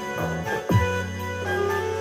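Electronic keyboard being played: held melody notes over a steady bass line, with a single drum thump about two-thirds of a second in.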